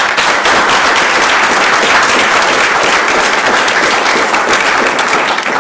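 Audience applauding: a dense, steady round of clapping from a seated crowd.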